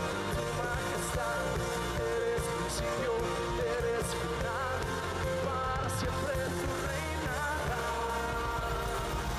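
Christian worship music: a band playing with a voice singing the melody throughout.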